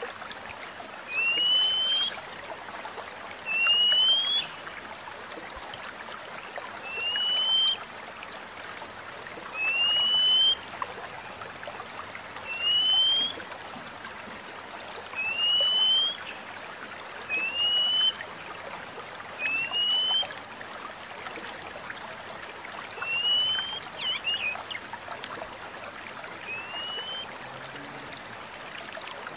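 Oriental magpie-robin (kacer) repeating a single clear rising whistle about every two to three seconds, over a steady sound of trickling water.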